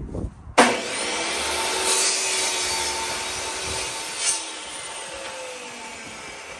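Electric miter saw started about half a second in, its blade cutting a shallow, depth-limited kerf in a small wood block as a test cut for a door-casing rabbet. Over the last couple of seconds the blade winds down and the sound fades.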